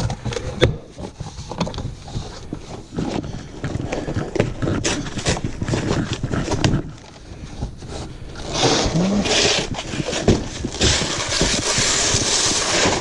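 Cardboard shipping box being opened and unpacked by hand: irregular knocks, clicks and scraping, with a longer stretch of scraping and rustling from about eight seconds in.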